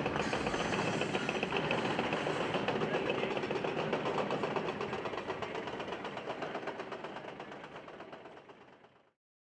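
A rapid, steady mechanical clatter that fades away over the last few seconds.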